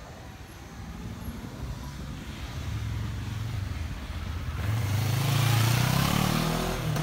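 Motorcycle engine running, growing steadily louder as it approaches and loudest about five to six seconds in as it passes close by.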